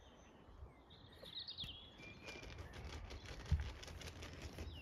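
Outdoor ambience with wild bird calls: a quick run of high chirps about a second in and a couple of single high notes later, over low rumbling noise, with one dull thump about three and a half seconds in.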